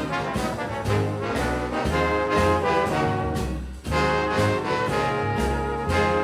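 Upbeat background music led by brass, trombone and trumpet, over a bass line, with a brief drop about four seconds in.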